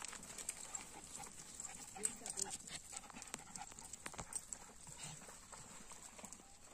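Faint, irregular footsteps and dogs' paws scuffing and clicking on a rough stone path as a pack of dogs walks along.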